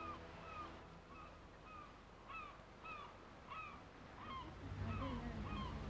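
Birds calling over and over, faint short honking calls about twice a second.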